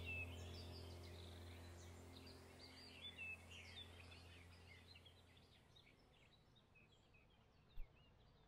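Faint birdsong, many short chirps, over a low, steady background-music drone, all fading out to near silence. A single brief soft thump comes near the end.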